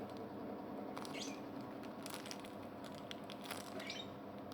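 Faint crinkling and rustling of a homemade squishy macaron being squeezed and handled, with a few soft crackles about a second in, about two seconds in and near the end. A steady low background hum runs underneath.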